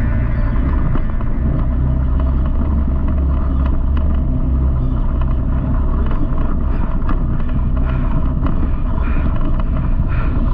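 Can-Am Commander side-by-side driving on a dirt trail: a steady low engine and drivetrain rumble with scattered knocks and rattles from the rough ground.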